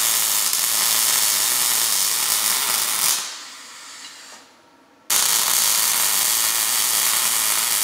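Wire-feed welder arc welding a steel bracket: a loud, steady hiss that stops about three seconds in and starts again about two seconds later for a second weld.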